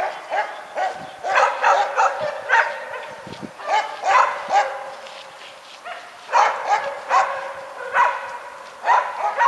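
Dogs barking and yelping, several quick barks at a time with short pauses between the runs.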